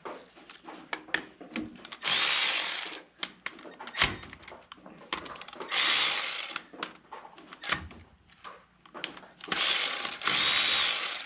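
Cordless electric ratchet running in three short bursts of about a second each, spinning out the 13 mm bolts that hold the tractor's flat steel oil pan, with clicks of handling between the bursts.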